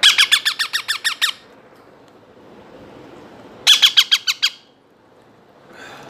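Baby ringneck parrot chick giving rapid, repeated begging calls while being hand-fed, about eight to ten notes a second, in two bursts: one at the start lasting just over a second, another a little under a second long about two and a half seconds later.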